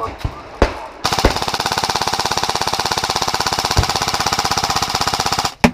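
Airsoft electric light machine gun, a Krytac LMG, firing one long full-auto burst of about four and a half seconds that starts about a second in, as a rapid, even mechanical rattle. A few sharper single cracks come just before it and near its end.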